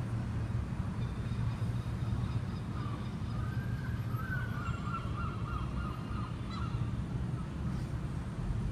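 Suzuki DL650 V-Strom's 645cc V-twin idling steadily. A wavering high call sounds over it for about four seconds in the middle.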